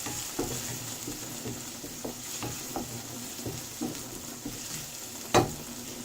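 Chopped onions sizzling in a pan of hot olive oil while a spatula stirs them, with frequent small scrapes and taps against the pan. One much louder knock of the spatula on the pan comes near the end.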